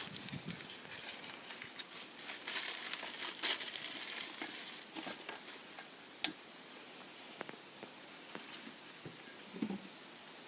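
Dry kindling crinkling and rustling as it is handled and packed to light a rocket stove, busiest in the first half. One sharp click comes about six seconds in, then quieter scattered crackles.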